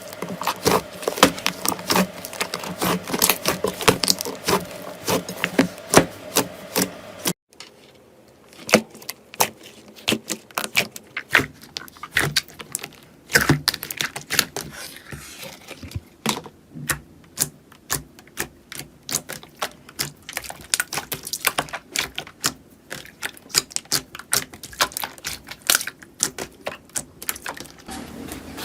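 Slime being squeezed, pressed and poked by hands, giving rapid crackling clicks and pops. A cut about seven seconds in switches to a quieter, sparser run of clicks.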